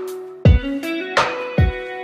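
Background music: a plucked melody over a steady drum beat, with a low thump about half a second in and again near the end.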